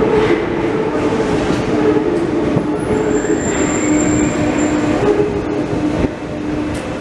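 Paris Métro Line 7 train (MF77 stock) pulling into an underground station, its cars passing close by: a steady rumble of steel wheels on rail with a humming motor tone. A faint rising whine comes in midway, and a thin high squeal sounds for a couple of seconds.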